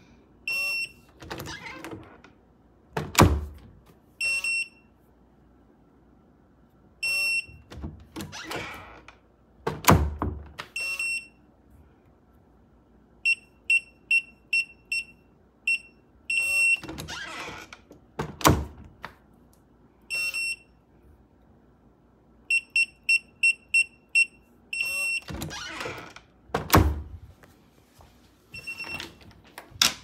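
Secustone fingerprint keypad door lock beeping: single short high beeps, and two quick runs of about five or six beeps as a passcode is keyed in, about halfway through and again near the end. Between them come several loud clunks of the lever handle and latch, and rustling handling noise.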